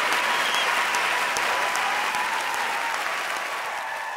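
Audience applause, a dense even clapping that fades out gradually toward the end.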